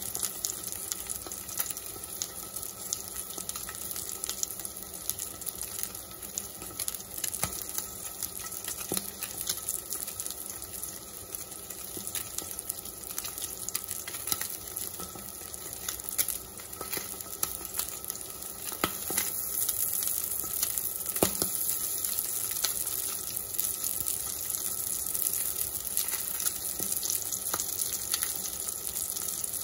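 Salmon fillet frying in oil in a cast-iron skillet: a steady sizzle with scattered small pops and crackles, a little louder from about two-thirds of the way in.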